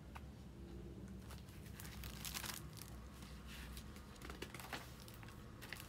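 Faint rustling of paper: a picture book's pages being handled and turned, in several short rustles, the strongest a little past two seconds in.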